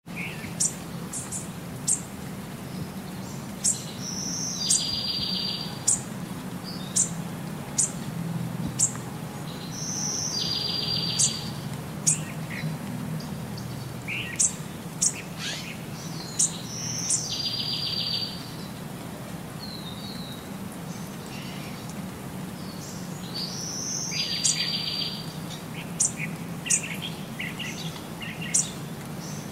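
Young little owl calling repeatedly: sharp high chirps scattered throughout, and about every six seconds a short buzzy trill lasting about a second. A low steady hum runs underneath.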